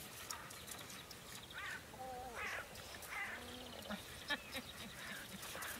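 Irish wolfhounds whining and yelping in excitement, a string of short calls that slide up and down in pitch, with a few lower moaning sounds among them.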